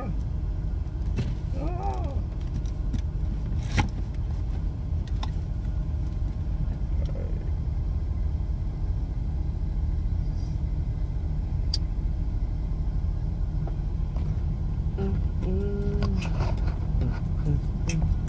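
A vehicle engine idling: a steady low rumble inside the cab. Over it come scattered sharp clicks and rustles from a cardboard shipping box being handled and opened.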